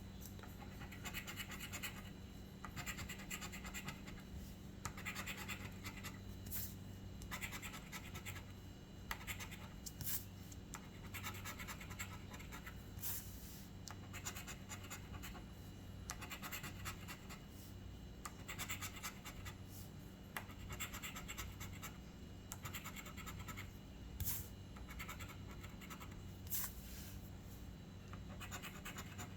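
Scratching the latex coating off a scratch-off lottery ticket in repeated short strokes, about one a second, over a steady low hum.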